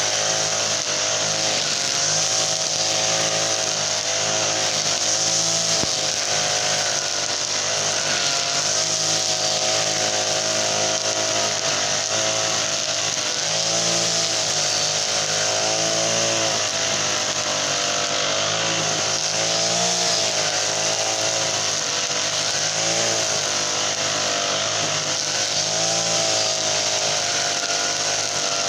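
Honda GX35 four-stroke brush cutter engine running at high speed while cutting grass, its pitch dipping and recovering every few seconds.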